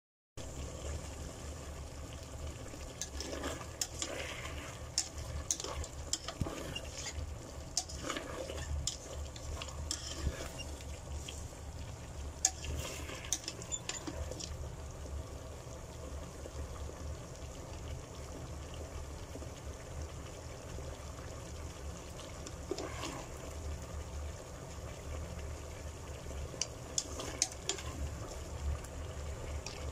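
Chicken wing tips cooking in a thick sauce in a pan, a steady simmering sizzle over a low hum, with a spatula knocking and scraping against the pan again and again through the first half, once more in the middle and again near the end.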